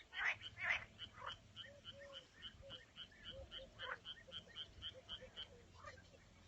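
Frogs calling in a marsh chorus: a rapid, regular run of short high notes about four a second, over lower short croaks, with a few louder sweeping calls in the first second.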